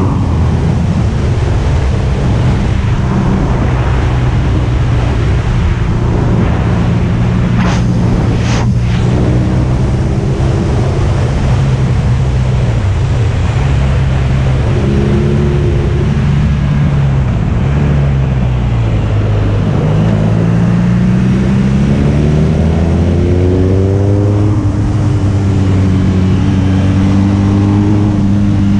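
Motorcycle engine at steady cruising revs under wind noise, heard from the bike's onboard camera. About two-thirds through, the revs drop and then climb again. Two sharp clicks come about a second apart, some eight seconds in.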